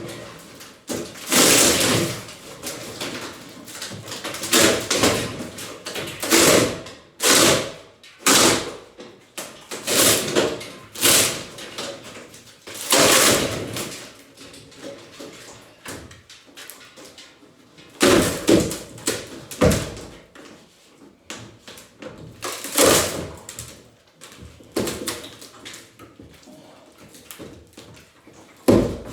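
Demolition of an interior wall: a string of irregular, loud blows and crashes, with debris breaking and falling between the strikes.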